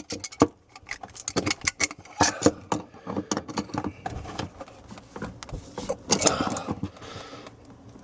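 Metal tool clicking and clinking irregularly against the nut of a sink's water supply line as it is worked loose.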